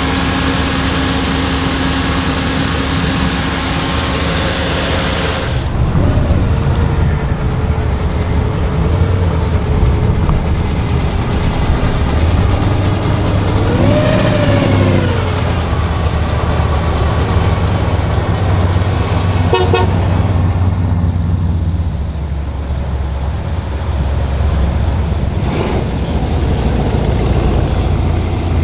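Classic cars driving past with a steady low engine and exhaust rumble. About halfway through, a short car horn toot rises and falls in pitch.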